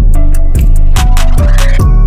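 Music with a deep bass line and a steady beat of drum hits and hi-hat ticks.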